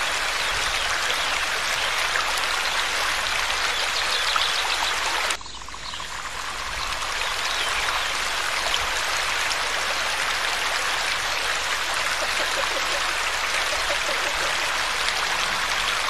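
Small forest stream splashing over a low cascade into a pool, a steady rush of water. About five seconds in it drops suddenly and swells back over the next couple of seconds.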